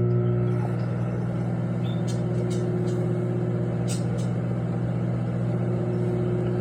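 Microwave oven running: a steady electrical hum with a few faint ticks.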